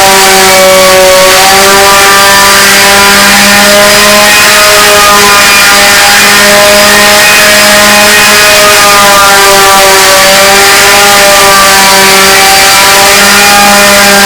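An engine running steadily at a constant droning pitch that wavers slightly up and down.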